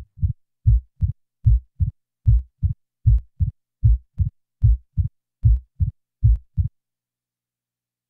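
Synthesised mitral stenosis heart sounds at about 75 beats a minute: a loud first heart sound, then the second sound closely followed by a sharp opening snap, with no diastolic murmur between beats. The beats stop suddenly near the end.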